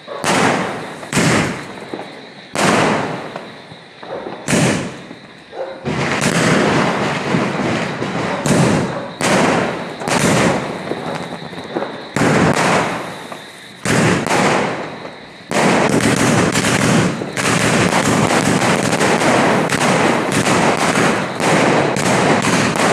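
A 60-shot multi-colour firework cake firing, one loud shot about every second, each fading away before the next. About two-thirds of the way through, the shots run together into a continuous dense barrage.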